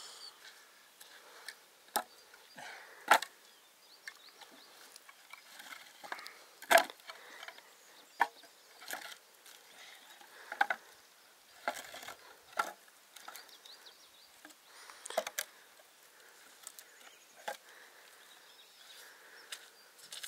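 Irregular sharp clicks and knocks, roughly one a second, two of them louder about three and seven seconds in.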